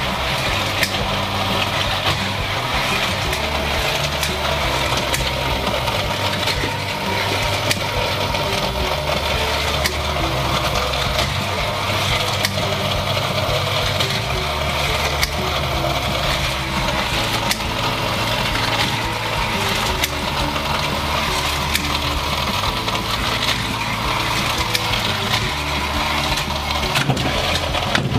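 Battery-powered motor of a toy car playset running steadily, with constant plastic rattling and many small clicks from the track.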